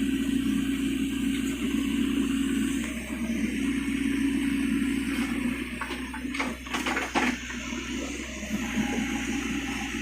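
LiuGong mini excavator's diesel engine running with a steady hum that dips briefly twice. A short cluster of sharp knocks comes about six to seven seconds in.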